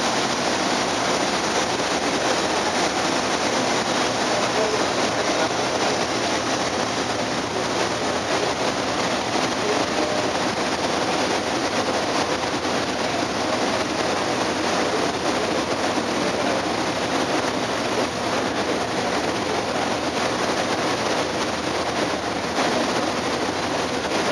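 Sakurajima car ferry under way, heard from its stern deck: a steady, unbroken noise of the ship's engines and the wake churning behind it.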